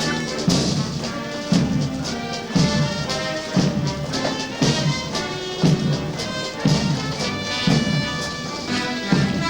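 Brass band playing a march, with a steady bass drum beat about once a second under the brass.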